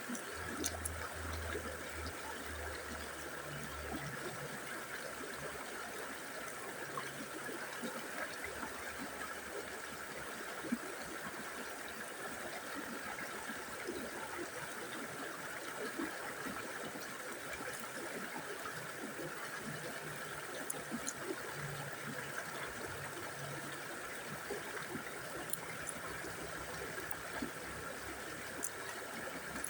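River water flowing steadily, a continuous babbling rush.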